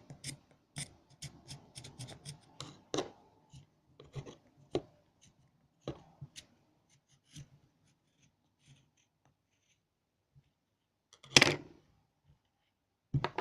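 Scissors scraping and crumbling candle wax: a run of short scrapes and clicks that thins out after about seven seconds, with a louder rustling knock near the end.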